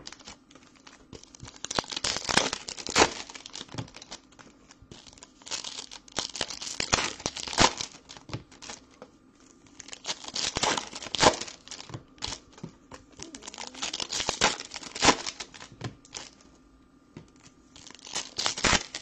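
Foil trading-card pack wrappers crinkling and being torn open in repeated bursts a few seconds apart.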